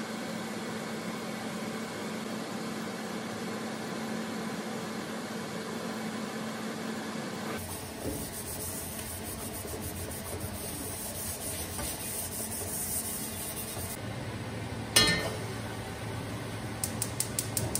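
Steady hum of the kitchen exhaust fan over the gas burner. Then a carbon steel wok is scrubbed in a stainless-steel sink with water running. About fifteen seconds in comes one sharp metal clunk as the wok is set down on the stove grate, and near the end the gas burner's igniter clicks rapidly as it is relit.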